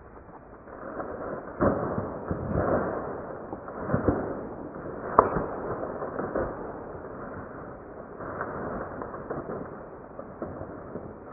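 Irregular rustling with scattered knocks, swelling several times, and a sharp click about five seconds in.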